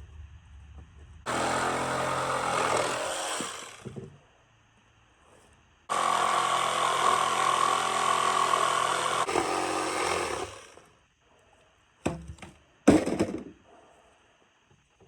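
Electric power saw cutting a 2x4: two cuts of a few seconds each, the motor whining through the wood and then winding down. Two short knocks follow near the end.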